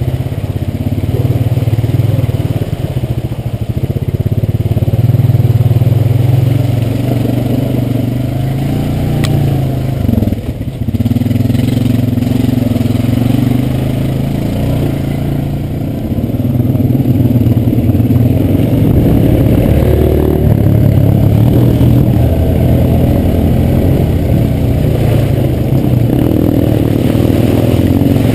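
Quad bike (ATV) engine running under load close to the microphone, its revs rising and falling as it climbs through mud. It eases off briefly about ten seconds in, then picks up again.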